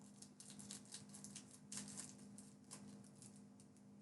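Faint, quick, irregular ticks and crinkles of scissors snipping through thin plastic packaging, over a faint low steady hum.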